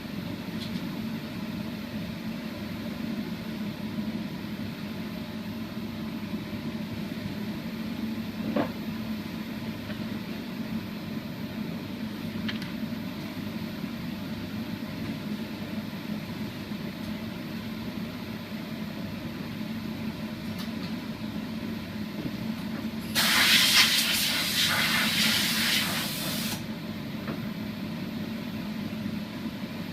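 A spray gun hisses in one burst of about three seconds near the end, laying on a coat of sanding sealer. Under it runs a steady low machine hum.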